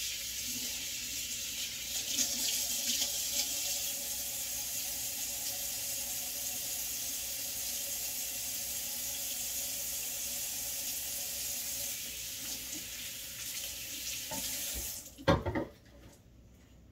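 Kitchen faucet running into the sink as a can of pineapple juice is rinsed off under it. The water shuts off suddenly about fifteen seconds in, followed by two sharp knocks.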